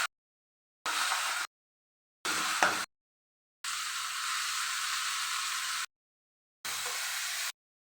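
Sizzling in a hot pan, heard as several short stretches of steady hiss that start and stop abruptly with silent gaps between them, one with a sharp crackle about two and a half seconds in.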